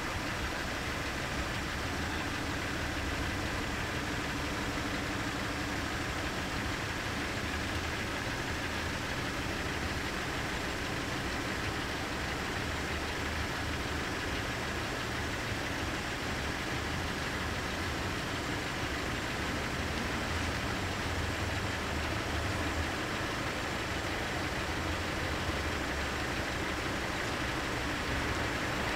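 Car engine idling steadily, with a constant low hum.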